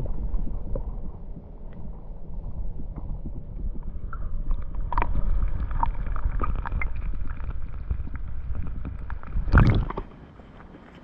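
Muffled underwater lake sound as heard by a submerged microphone: a steady low rumble with small clicks and gurgles of stirred water, then a loud splash about nine and a half seconds in, after which it goes much quieter.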